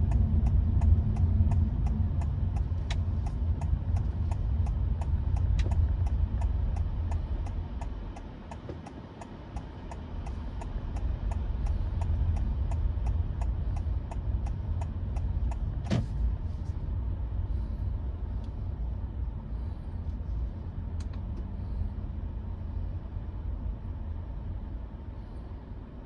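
Low tyre and road rumble inside the cabin of a Honda Vezel e:HEV Z hybrid on the move, easing off briefly about a third of the way in. A light ticking about twice a second runs until about two-thirds in, where a single short click sounds.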